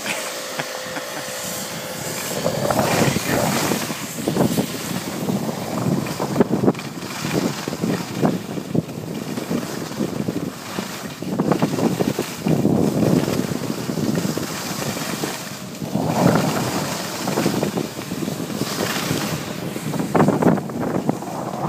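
Wind rushing over the microphone of a skier moving downhill, mixed with the hiss of skis sliding on snow; it swells and drops in irregular gusts.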